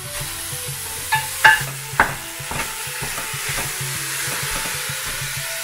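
Ground lamb and beef sizzling as they hit a hot stainless steel pot and are stirred and broken up with a wooden spoon. A few sharp knocks come in the first two seconds, then a steady sizzle.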